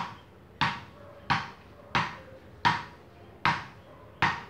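Small rubber frescobol ball bounced repeatedly on the face of a frescobol paddle held flat: seven sharp taps, steady at about one every 0.7 seconds, each with a short ring.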